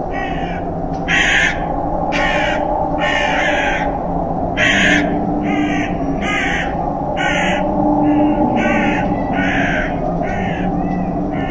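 A hooded crow cawing over and over, about one and a half harsh calls a second, over a steady low hum.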